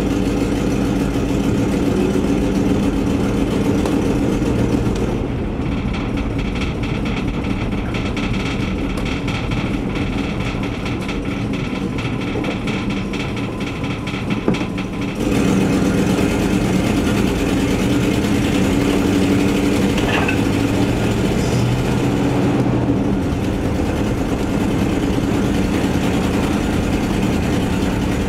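Camper van engine running on a test drive, with the noise of an exhaust leak. It gets quieter about five seconds in and louder again about fifteen seconds in.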